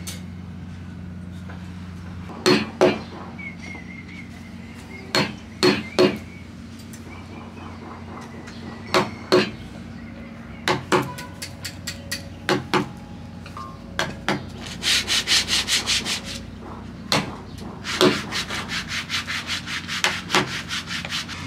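Claw hammer striking a wood chisel into a timber rudder blank, cutting a notch: single blows and pairs of blows at first, then quick runs of light taps about five a second in the second half.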